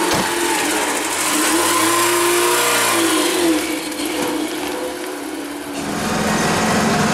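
Car engine revving up and easing off again as the car pulls away, then running at a steadier pitch near the end.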